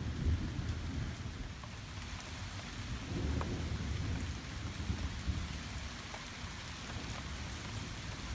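Steady rain falling, with a low, uneven rumble of distant thunder swelling now and then underneath.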